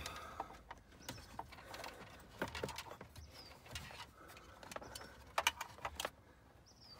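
Irregular light plastic clicks and knocks with some rustling as a Belsee 12.3-inch head unit in its dash bezel is worked into a Toyota FJ Cruiser's dashboard, with a few sharper clicks a little after five seconds in.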